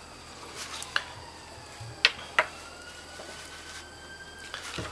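A few short, light clicks and taps, about four in the first two and a half seconds, over a faint steady background hum.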